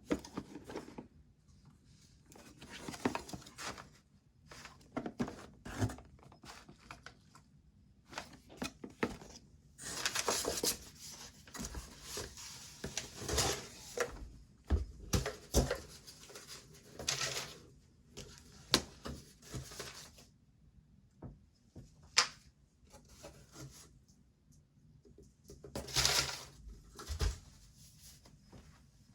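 Keyboard box and packaging being handled and opened: irregular rubbing, sliding and rustling of cardboard and wrapping, with a few knocks.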